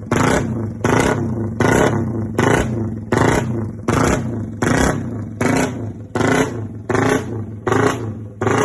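Engine fitted with a 'demonyo' racing carburetor being blipped over and over, a quick rev about every 0.7 seconds over a running idle, for a carb sound check.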